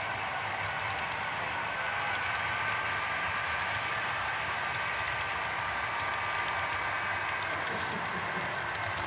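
Large-scale model freight cars rolling past on their track: a steady rolling sound with scattered light clicks of the wheels on the rails.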